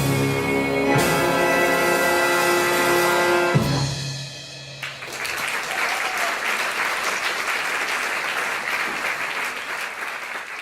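A band with brass holds the song's final chord and cuts it off with a drum hit about three and a half seconds in. The audience then applauds from about five seconds in.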